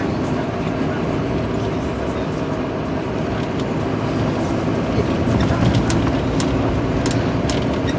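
Inside a Volvo 7700 city bus under way: its Volvo D9C six-cylinder diesel engine runs steadily under a haze of road and tyre noise. A few light clicks and rattles come in the second half.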